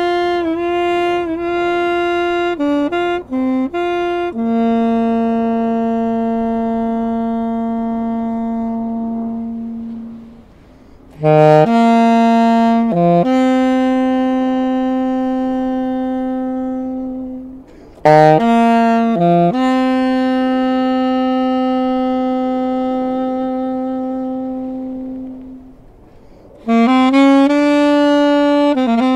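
Solo alto saxophone playing a slow melody: each phrase opens with a few short notes and settles into a long held low note that slowly fades, with short pauses between phrases.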